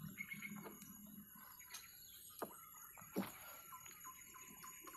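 Quiet handling of a nylon gill net in a small boat: a few soft clicks and knocks, two of them a little louder about two and a half and three seconds in.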